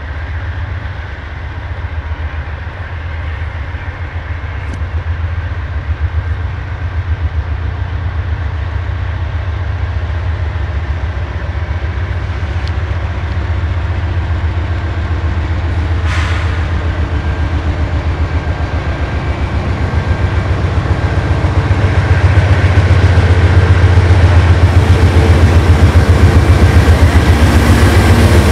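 Canadian Pacific GE AC4400CWM diesel-electric locomotives approaching and passing close by, their 16-cylinder diesel engines making a deep, steady drone that grows louder throughout and is loudest in the last few seconds as the lead unit goes past.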